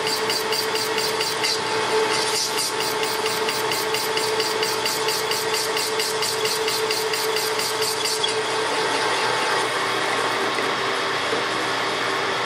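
Metal lathe machining a BMW motorcycle connecting rod: a steady motor hum with a rapid ticking, about four a second, as the tool cuts the spinning rod. The ticking stops about eight seconds in while the lathe keeps running.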